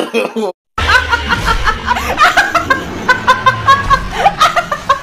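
Brief voice sounds, a short break, then a person laughing in a long run of quick, short chuckles.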